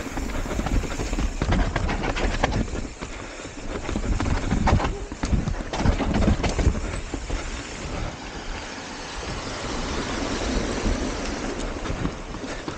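Hardtail mountain bike descending rocky, rooty singletrack: tyres rolling over dirt and stones, with frequent knocks and rattles from the bike as it bounces over rocks.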